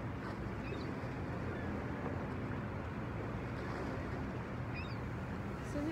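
Steady noise of sea surf and wind on an open shore, with a few faint high chirps.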